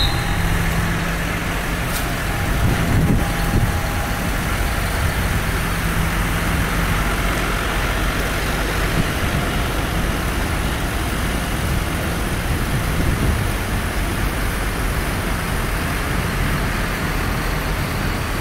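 A convoy of large farm tractors rolling slowly past, their diesel engines running in a steady low hum.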